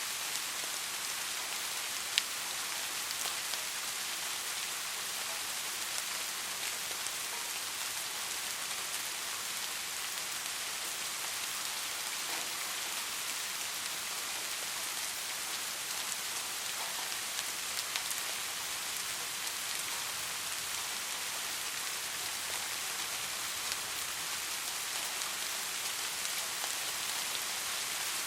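Steady soft rainfall: an even hiss of many drops, with a few single drops clicking out of it, the loudest about two seconds in.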